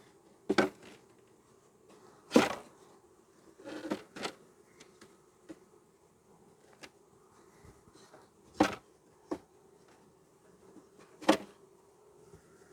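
A package of honeybees buzzing with a steady low hum, broken by about five sharp knocks and bumps from handling the hive equipment. The loudest knocks come about two and a half seconds in and then about nine seconds in.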